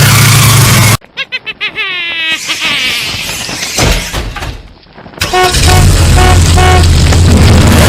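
Edited, distorted sports car horn sound effect. Loud harsh noise with a low hum gives way about a second in to a rapid stutter of honks sliding down in pitch, then a dip. From about five and a half seconds comes a string of short repeated honks over loud noise.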